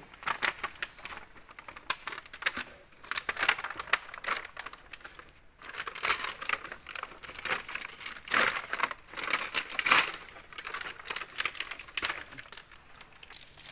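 A thin plastic film sheet crinkling and crackling in irregular bursts as it is handled and lifted off an LCD panel, with a brief pause about five seconds in.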